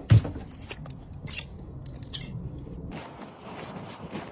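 Wind buffeting the microphone with a low rumble that drops away about three seconds in, opening with a knock and broken by a few short, sharp crunching crackles.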